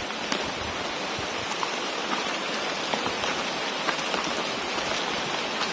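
Steady rain falling on forest leaves and undergrowth, with scattered single drops ticking through it.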